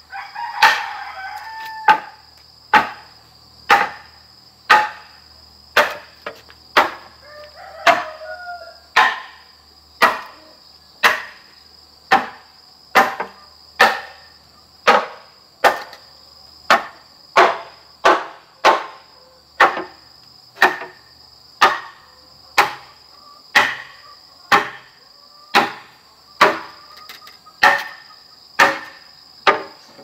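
A machete chops into a wooden pole at about one stroke a second, each stroke a sharp knock. A rooster crows near the start and again about eight seconds in, over a steady high whine of insects.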